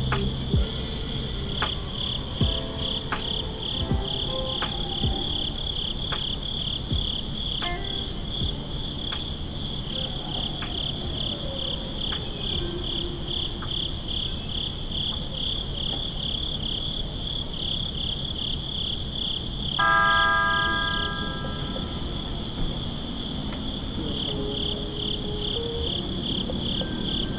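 Crickets chirping steadily in quick, even pulses at a high pitch. Scattered knocks sound through the first half, and a brief pitched tone with several notes stacked together sounds about twenty seconds in.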